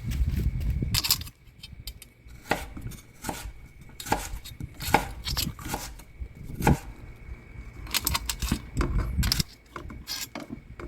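Irregular sharp clicks and knocks of hard objects being handled, coming in clusters over a low rumbling handling noise, with a faint steady high tone throughout.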